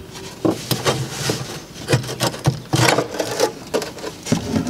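Irregular rubbing, scraping and clicking of hands working a plastic EVAP canister vent solenoid loose from its mount under the car, in short uneven strokes.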